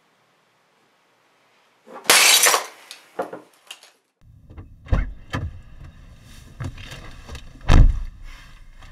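Glass shattering once, loud and sudden, about two seconds in, with a couple of smaller hits of pieces after it: the glass of a framed diploma being smashed. Then, over a low steady rumble, a few dull heavy thumps.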